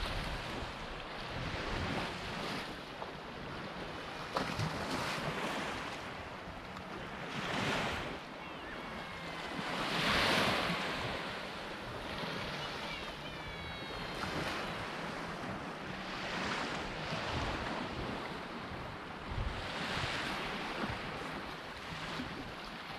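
Small waves washing up on a sandy beach in slow swells, the loudest about ten seconds in, with wind buffeting the microphone.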